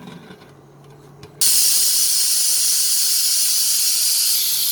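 Pressure cooker whistle going off: a loud, steady hiss of escaping steam that starts suddenly about a second and a half in. It is the sign that the cooker has reached full pressure, one of the whistles counted to time the cooking.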